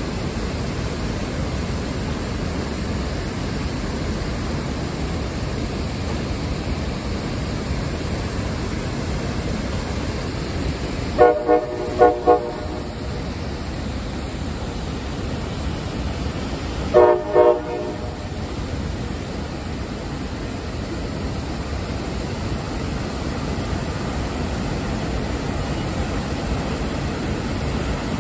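CSX diesel freight locomotive horn: a few short blasts about eleven seconds in, then two more short blasts about five seconds later. Under it, a steady rush of the waterfall and the train running.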